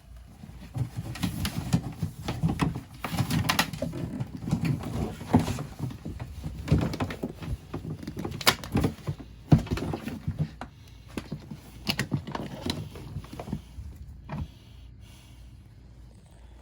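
Irregular knocks, bumps and scrapes from a lidded container holding a beaver being handled and shifted, busiest early and thinning out toward the end.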